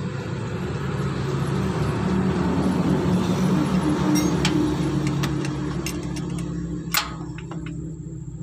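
A steady low mechanical hum, like an engine running, with sharp metallic clicks and taps of a hand tool on the truck's starter motor mounting from about four seconds in, the loudest click about seven seconds in.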